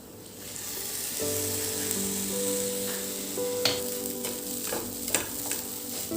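Background music of slow held chords, over a steady high hiss, with a few sharp clicks in the second half.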